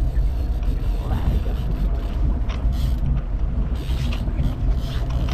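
A boat's engine running with a steady low rumble, and a few short clicks over it.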